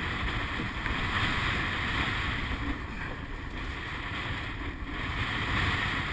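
Wind on the microphone and rushing sea water around a surf boat being rowed through choppy water, a steady noisy wash with low rumble.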